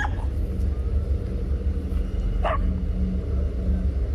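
A dog barks twice at a snake it is facing off with: one short bark at the start and another about two and a half seconds in. A steady low rumble runs underneath.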